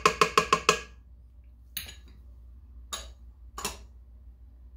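A quick run of about eight ringing clinks within a second, as a small glass prep dish is knocked against the stainless-steel stand-mixer bowl to empty it, then three single clinks of dishes being handled.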